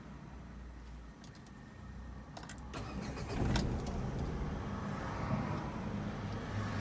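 Renault Kwid's three-cylinder engine being started: a few key and ignition clicks, then the engine catches about three and a half seconds in and settles into a steady idle. There is no belt squeal, since the worn alternator and air-conditioning belts that caused a cricket-like chirp on start-up have been replaced.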